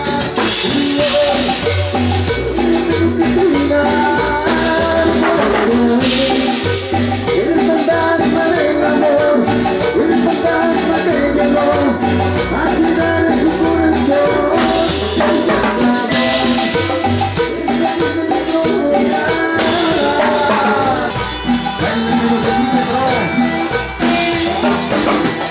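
A live Latin dance band playing a number: a steady scraped metal güiro rhythm over drums, bass, electric guitar, keyboard and brass.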